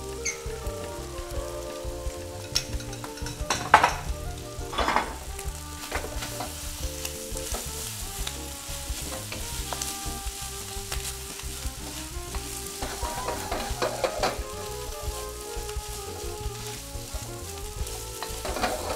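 Cold day-old rice sizzling as it fries in a hot wok over a gas flame. A wooden spatula scrapes and knocks against the wok as the rice is stirred and tossed, with two louder knocks about four and five seconds in.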